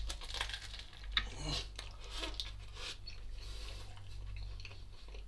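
A person biting into and chewing a thick slice of burger, with irregular wet mouth and crunching noises.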